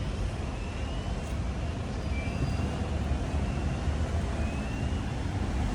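Road traffic: a steady rumble of passing vehicles.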